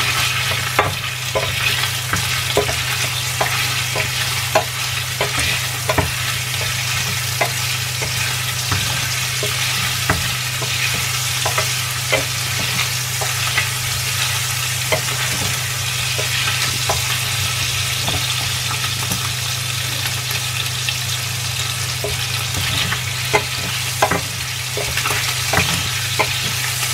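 Raw shrimp sizzling in hot oil in a stainless steel frying pan, with a spatula scraping and tapping against the pan in frequent short clicks as they are stirred. A steady low hum runs underneath.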